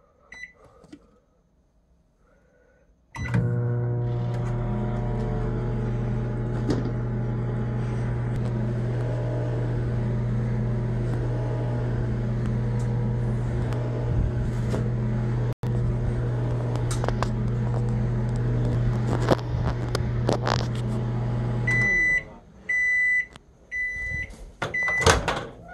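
Microwave oven keypad beeping as buttons are pressed, then the oven running with a loud steady hum for about nineteen seconds. The hum stops abruptly and the oven beeps about five times to signal the end of the cycle, with a few sharp clicks near the end.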